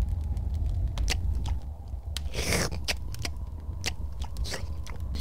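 Chewing and crunching sound effects for an eagle puppet tearing into and devouring an ox: a run of irregular sharp crunches, with a longer rasping gulp about two and a half seconds in, over a low steady hum.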